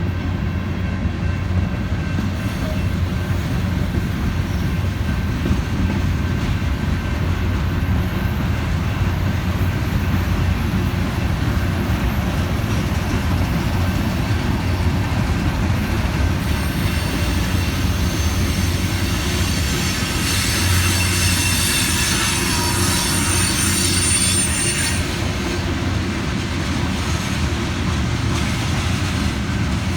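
Union Pacific manifest freight train rolling past with a steady rumble of wheels on rail. A high-pitched wheel squeal comes in a little past the middle and dies away about two-thirds of the way through.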